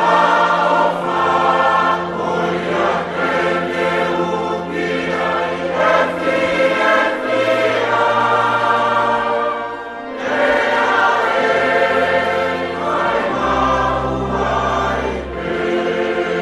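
Choir singing a slow, gospel-style piece over held low accompaniment notes that change every few seconds.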